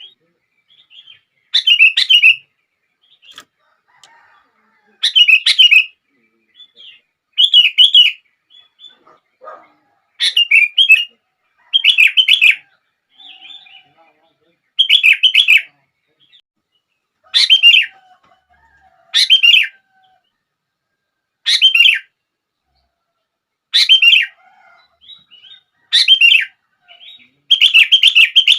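Sooty-headed bulbul (kutilang) singing in full, lively song: short, loud song phrases repeated about every two seconds, with faint softer calls between them.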